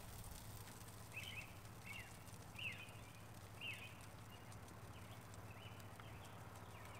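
A bird chirping faintly in short calls about once a second, over a low steady hum.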